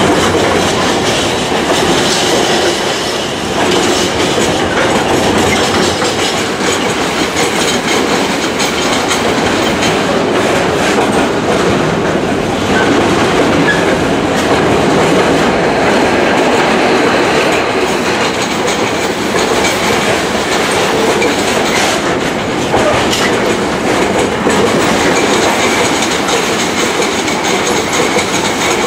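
Container flat wagons of a long intermodal freight train passing close by at speed: a steady, loud rolling noise of steel wheels on the rails with scattered clacks.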